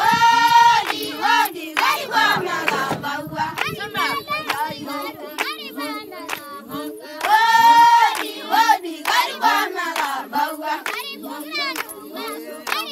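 Samburu women singing a welcoming song together to a steady hand-clapping beat. A lead voice holds a loud high note at the start and again about seven seconds in.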